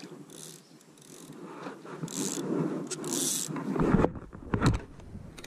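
Baitcasting reel's line-out clicker ratcheting in short bursts as a fish pulls line from it. Heavy knocks from handling the rod and boat around four to five seconds in.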